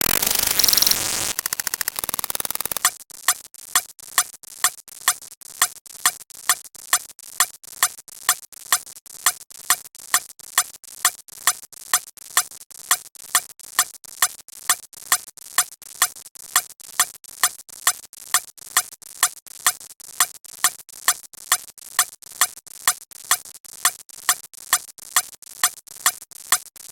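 About three seconds of dense, noisy sound effects, then a long run of short, identical electronic blips repeating evenly about two and a half times a second.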